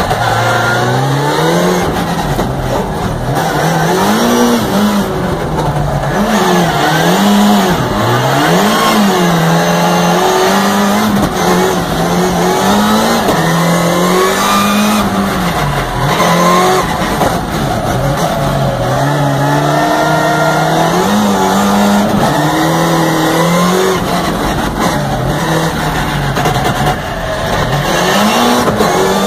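Rallycross car engine heard from inside the cockpit, revving up and falling back again and again as the car is driven hard through the gears and corners, its pitch rising and dropping every second or two.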